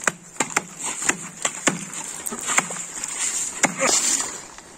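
Hand axe and steel ice chisel chopping wet lake ice to open a fishing hole: about ten irregular, sharp blows.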